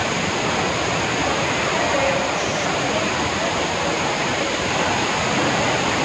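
Kapila Theertham waterfall in spate after heavy rain: a loud, steady rush of falling water.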